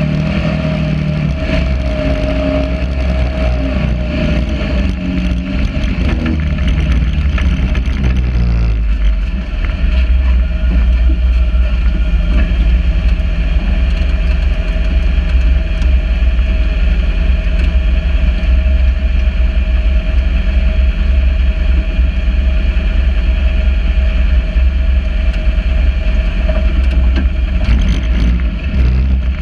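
Sand rail buggy engine running with its pitch shifting as it drives up a dune. About nine seconds in the sound changes abruptly to a steady, unchanging idle with a low drone.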